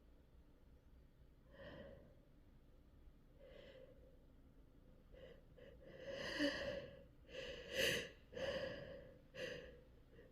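A woman's breathy gasping inhales building up to a sneeze from a tickled nose: faint at first, then louder and closer together from about six seconds in.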